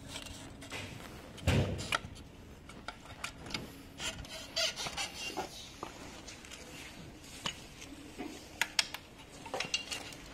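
Hands working the plastic and metal folding joint and stem of an electric scooter: irregular clicks, knocks and rubbing of parts, with a heavier knock about a second and a half in.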